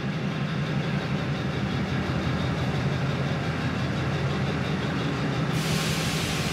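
Diesel locomotive DF.2053 of Myanma Railways running with a steady low engine hum as its passenger train pulls slowly out of the station. About five and a half seconds in, a hiss starts suddenly.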